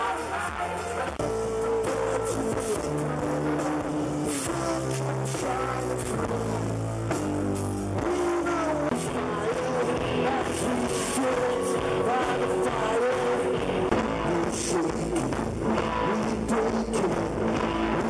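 Live pop-rock band music with guitar and a singing voice, amplified through a PA system.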